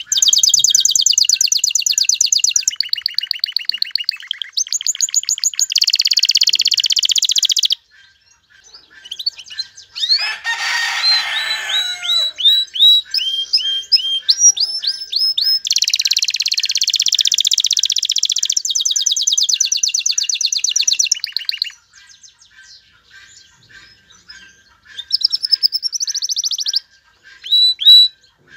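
Male domestic canary singing its breeding (courtship) song: loud phrases of fast repeated trills and rolls, switching from one trill to the next every second or two. There is a short break about a quarter of the way in, and a longer, quieter stretch of scattered chirps about two-thirds of the way through before a last trill and a few chirps.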